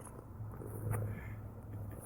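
Domestic cat purring: a low, steady, rapidly pulsing purr that swells slightly about a second in, with a faint tick near the middle.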